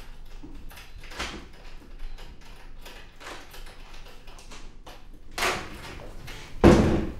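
A door shutting with a heavy thud near the end, after a few fainter clicks and knocks.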